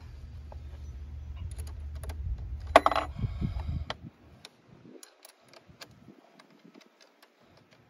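A low hum for about the first four seconds as the car's electrical systems cycle after the battery is reconnected, with a sharp clunk near the three-second mark. After that, scattered light metallic clicks and clinks.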